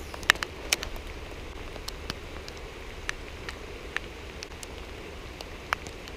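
Steady rain falling, with scattered sharp ticks of drops striking close to the microphone.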